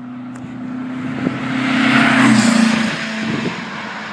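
A motor vehicle's engine passing by. It grows louder to a peak about two seconds in, then drops in pitch and eases off.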